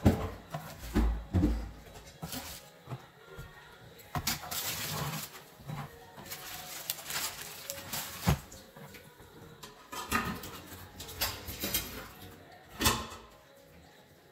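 Scattered knocks, clicks and short scrapes of a metal spatula against parchment paper and a wire cooling rack as baked cookies are lifted and set down, with hands handling the cookies.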